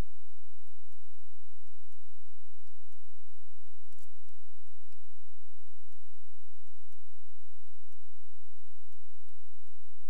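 Computer mouse clicking faintly, in quick press-and-release pairs, over a low steady hiss.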